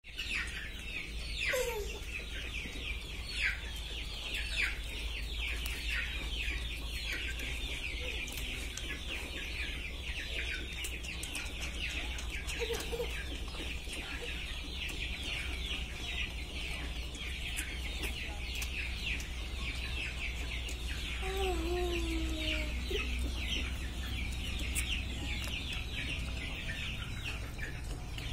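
A crowd of chicks peeping continuously, a dense chorus of short, high, falling cheeps, over a low steady hum. A few lower calls from bigger birds come through, once near the start and twice about three quarters of the way in.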